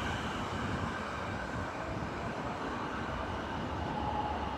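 Kobe Municipal Subway train pulling out of the station and running away along the track: a steady rumble of wheels and motors with a faint high tone.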